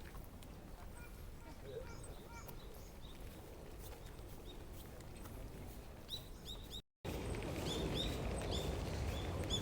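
Small birds chirping in short repeated calls over steady outdoor ambience. The chirping grows busier in the second half, after a brief cut to silence about seven seconds in.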